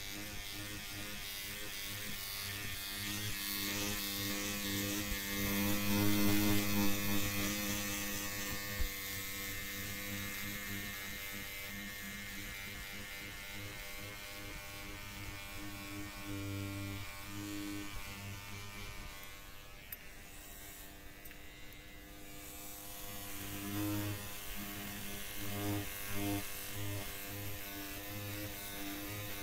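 Electric hair clippers buzzing steadily as they trim hair. The buzz swells and fades, dips about two-thirds of the way through, then returns in short surges near the end.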